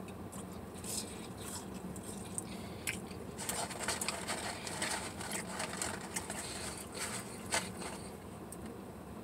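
A person eating at close range: chewing and biting with small crackly mouth noises, busier from about three and a half seconds in, over a steady low hum.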